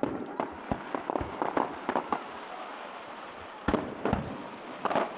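Aerial firework shells bursting: a quick run of sharp bangs and crackles, then louder single booms about three and a half and four seconds in, and more near the end.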